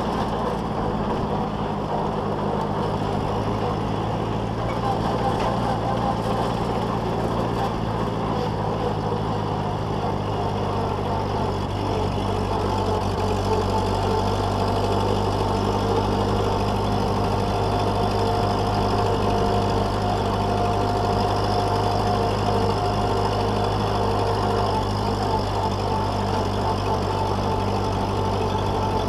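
Old Ford tractor engine running steadily while the tractor drives along a dirt road, heard close up from the driver's seat.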